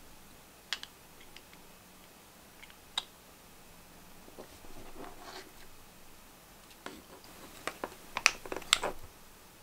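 Small plastic clicks and rubbing as a 3D-printed plastic bridge is worked into the eyecups of Speedo Fastskin Elite swimming goggles by hand: a couple of sharp single clicks, a soft rustle, then a quick run of louder clicks near the end.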